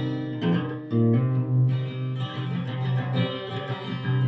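Guitar music: an instrumental passage of a song with a steady bass line and no singing.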